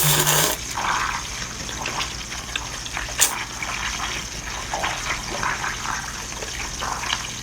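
Wet chewing, smacking and slurping of someone eating saucy spicy seafood close to the microphone, as irregular short crackly mouth sounds, with a louder burst right at the start.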